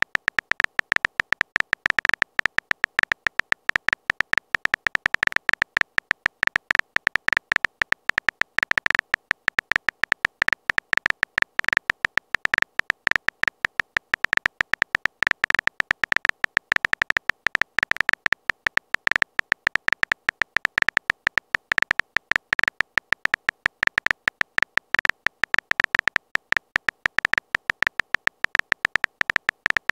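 Rapid, uneven stream of short, high-pitched phone keyboard tap clicks as a message is typed out letter by letter.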